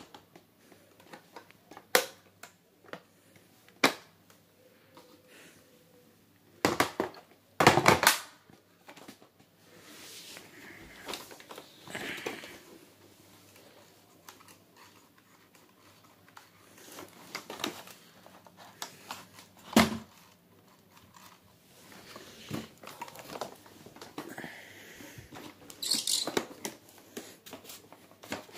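Scattered clicks, knocks and rattles of an upright vacuum cleaner's plastic body, hose and handle being handled, with the motor not running. A cluster of louder knocks comes about a quarter of the way in, and one sharp knock comes about two-thirds of the way through.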